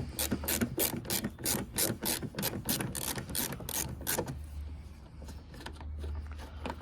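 Hand ratchet wrench clicking steadily, about four clicks a second, while a 10 mm bolt is undone; the clicking stops about four seconds in.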